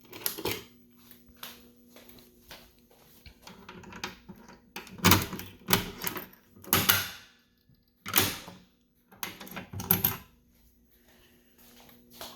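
A string of irregular knocks and clicks, most of them clustered between about five and seven seconds in and again around eight to ten seconds, over a faint steady hum.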